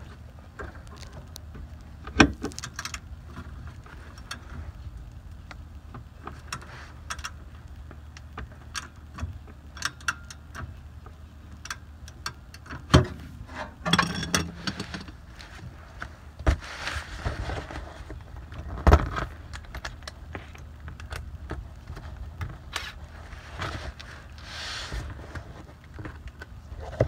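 Scattered metallic clinks and knocks from hand tools and a jack against a car's rear suspension, a few sharp ones standing out, with a short rattling run about halfway through, over a steady low hum.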